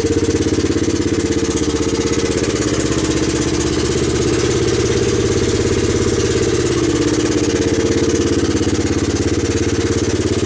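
1985 Honda ATC 250SX's single-cylinder four-stroke engine running steadily at idle on its first start after years of sitting, fed by fuel poured straight into the carburettor. The owner noted a little knocking on this first run.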